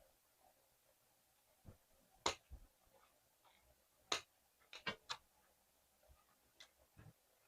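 Sparse, sharp clicks and taps of hands handling a doll and small tools, with a quick run of three clicks about five seconds in.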